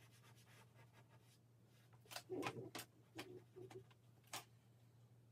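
A few quick, faint scratchy drawing strokes on paper on an easel board, clustered in the middle and the last coming a little apart from the others, over a steady low room hum.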